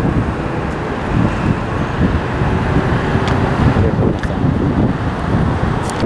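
Road traffic on a busy multi-lane road, heard from above, with wind rumbling on the microphone as the loudest part.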